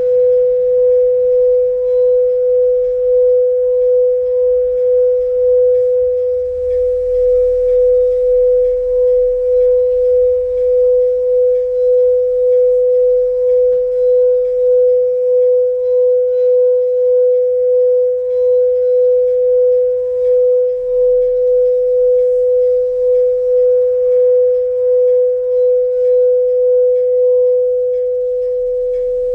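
A single steady ringing tone, pure and unchanging in pitch, with a faint overtone an octave up, pulsing gently about twice a second.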